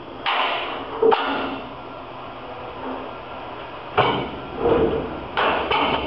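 Sharp knocks and clunks from the fittings and panels of an indent length separator being handled by hand during a cylinder change: two in the first second or so, then four more close together from about four seconds in.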